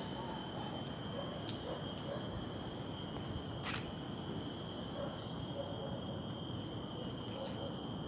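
Insect chorus of several steady, unbroken high-pitched tones, over a low even background noise, with one faint click a little before halfway.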